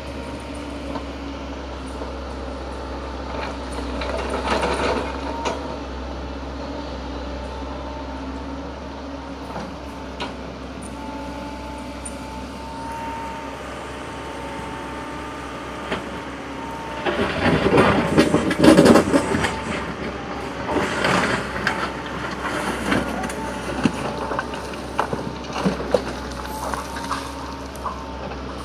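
Excavator engine running steadily with a thin steady whine, its bucket working dirt and rock: a brief scrape about four seconds in, then repeated loud scraping and clatter from about 17 seconds on.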